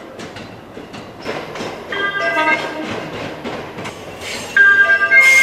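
JR West electric train rolling slowly with wheel clicks, a few short horn notes about two seconds in, then near the end a loud steady two-tone train horn sounding.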